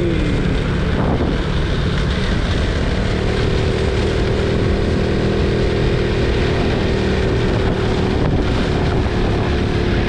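Honda Innova 125's single-cylinder four-stroke engine running steadily on the move, heavily mixed with wind buffeting the microphone. A steady engine note settles in about three seconds in and holds.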